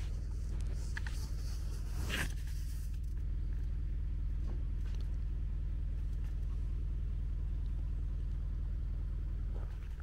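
Steady low engine rumble of an idling truck, with a couple of light clicks about one and two seconds in.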